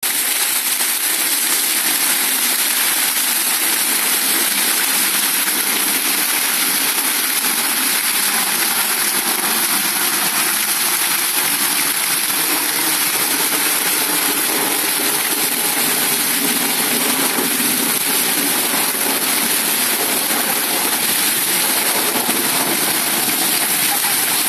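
Fountain jets spraying up and splashing back into the basin: a steady, unbroken rush of falling water.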